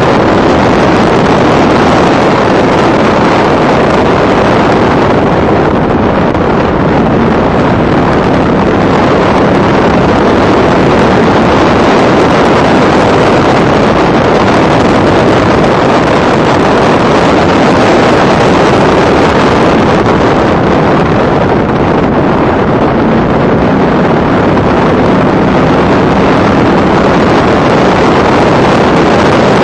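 Factory Five Cobra race car's V8 engine running hard at speed, loud and steady on an onboard microphone buffeted by wind.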